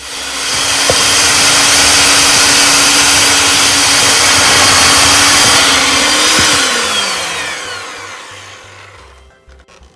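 Electric hand mixer running at speed, its beaters working powdered sugar into creamed cream cheese and butter. The steady motor whine falls away about six and a half seconds in as the mixer is switched off and spins down, and the noise fades out over the next few seconds.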